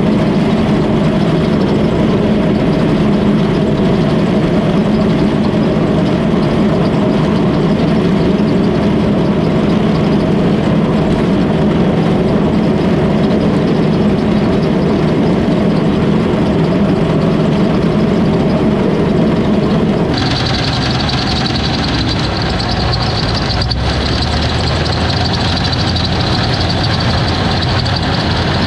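Old tractor engine running steadily under load while baling hay. About twenty seconds in the sound changes abruptly: the low drone falls back and a higher hiss comes up.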